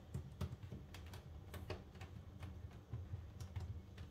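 Light, irregular taps and clicks, a few a second, of fingers pressing a strip of double-sided tape against the underside of a kitchen cabinet.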